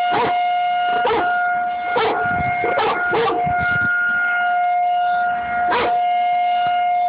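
Outdoor tornado warning siren sounding a steady tone. Over it, an American bulldog howls along in short, swooping cries, about six of them, with a longer gap before the last one.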